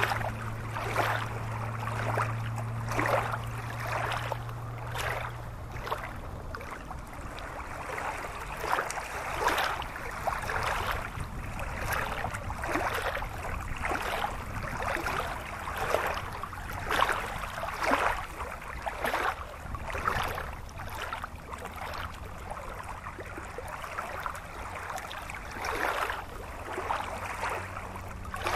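A shallow rocky stream running over stones: a steady water noise that swells and ebbs every second or so. A low steady hum sounds underneath for the first several seconds.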